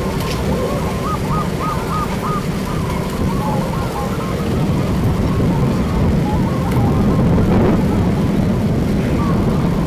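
Many zebra doves (perkutut) cooing from their hanging cages, with runs of short rolling notes that overlap one another. A loud steady low rumble lies underneath.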